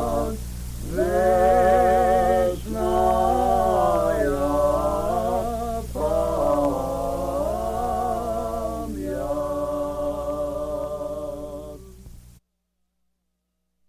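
Unaccompanied sung chant in slow, held phrases with wavering notes over a steady low drone. It fades and then cuts off to silence about twelve seconds in.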